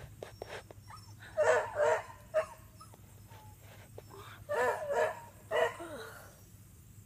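A dog barking in short bursts: a couple of barks about a second and a half in, then a few more around the five-second mark.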